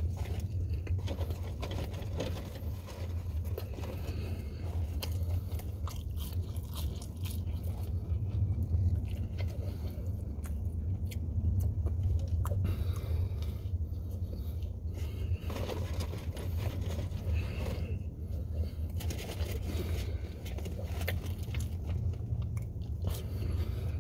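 Person chewing a mouthful of bacon cheeseburger, with many small wet clicks of the mouth and jaw, over a steady low hum in the car cabin.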